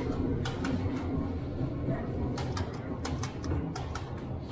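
Grocery store ambience: a steady low hum with many light clicks and taps scattered through it.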